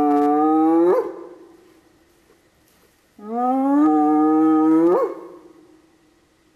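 Spotted hyena whooping with its head lowered to the ground: two long, slowly rising whoops, each ending in a quick upward sweep. The first ends about a second in; the second starts about three seconds in and lasts about two seconds.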